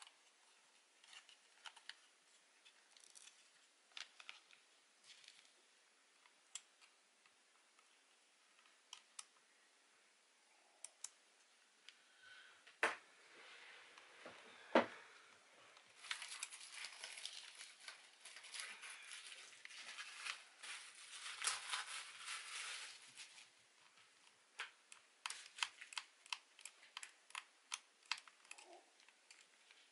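Small plastic and metal parts of a Soviet Agidel electric shaver being handled during disassembly: scattered light clicks and taps, with two sharper clicks a little before halfway. Several seconds of scratching and rattling follow, then a quick run of clicks near the end.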